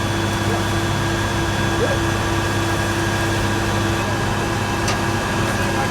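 A large engine running at a steady idle: an unchanging drone with an even hum.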